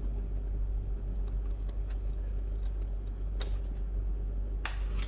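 Steady low hum under the whole stretch, with a few faint, light clicks of wire and parts being handled, the sharpest about four and a half seconds in.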